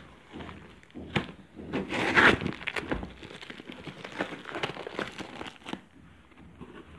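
Cardboard shipping box and its black plastic wrapping being handled and torn open by hand: irregular crinkling and tearing with sharp clicks, loudest in a burst about two seconds in.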